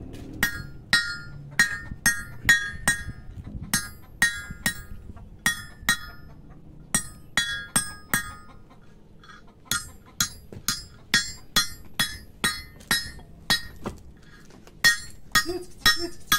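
Hammer blows on a metal rod laid on a small steel block. The strikes come about two a second in runs with short pauses, each a sharp metallic clink that rings briefly.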